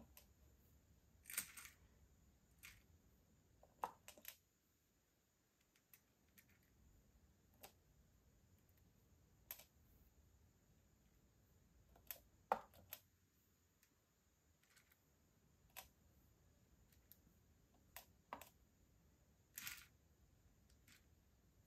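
Irregular small clicks and ticks of metal tweezers picking plastic Perler beads out of a plastic bead organizer and setting them onto a pegboard, a dozen or so spread over the time, a few louder and slightly longer than the rest.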